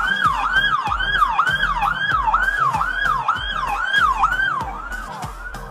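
Police car siren wailing rapidly, each cycle a quick rise and a slower fall, about two a second. It cuts off shortly before the end.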